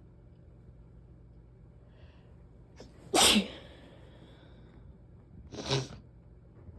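A person sneezing: a loud sneeze about three seconds in after a short intake of breath, then a second, smaller sneeze near the end.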